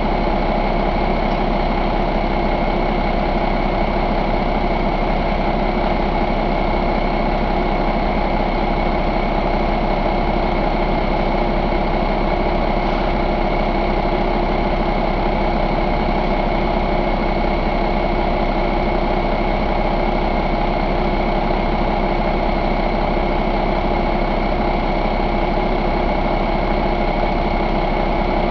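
2013 Cummins ISX15 inline-six diesel engine idling steadily, an even low rumble with a constant whine over it.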